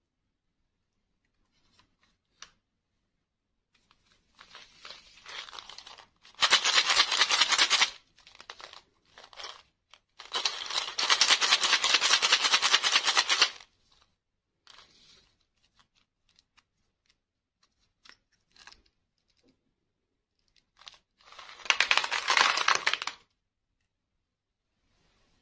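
Paper candy tubes being torn open and shaken, with small candy-coated chocolates rattling out onto a plastic tray. The sound comes in three loud bursts of dense rattling, with quieter crinkling between them.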